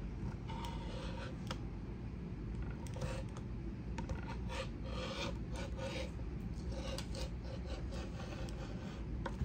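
Rotary cutter rolling through folded swim fabric on a cutting mat, in a string of short strokes as it is pushed along the pattern edge.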